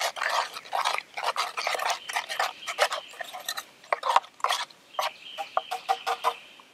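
A spoon stirring hot chocolate mix into water in a cup: quick irregular scraping and clinking against the cup's sides, stopping shortly before the end.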